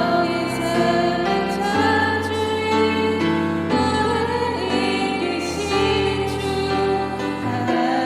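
A worship song sung over instrumental accompaniment, with held chords that change every second or two.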